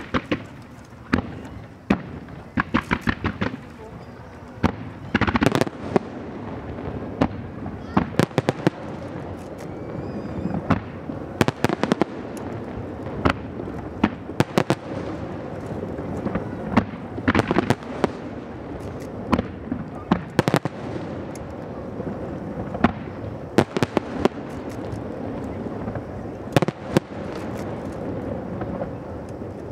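Aerial fireworks shells bursting, a long irregular series of sharp bangs, some coming in quick volleys of several in a row.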